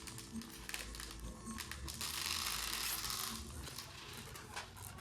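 Handling of a toy and its packaging: scattered light clicks, with a burst of rustling about two seconds in that lasts over a second. Faint background music runs underneath.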